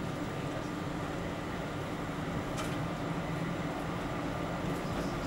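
Helsinki street tram running along its track, heard from the driver's cab: a steady running noise with a low hum, and one sharp click about two and a half seconds in.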